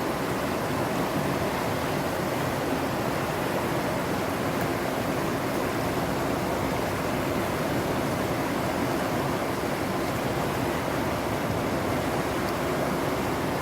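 Rushing water making a steady, even noise with no breaks.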